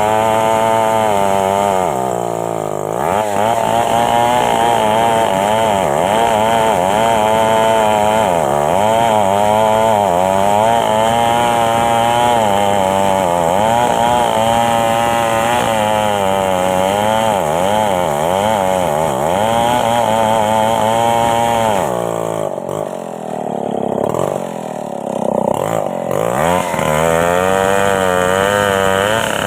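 Stihl chainsaw running at high speed while cutting wood, its engine pitch wavering up and down under load. The revs drop briefly about two seconds in and again for a few seconds near the end before picking back up.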